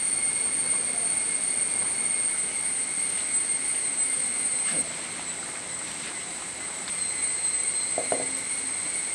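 A steady high-pitched whine of several held tones carries on in the background throughout. About eight seconds in, a short metallic clank with a brief ring comes as an iron kadai is set down on the hearth stones over the fire.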